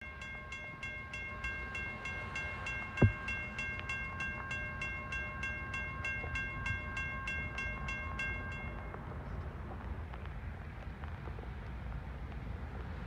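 WRRS mechanical crossing bell ringing in quick, even strikes, about three a second, while the crossing gates lower, then stopping about nine seconds in once the gates are down. A single sharp thump about three seconds in, over low steady background noise.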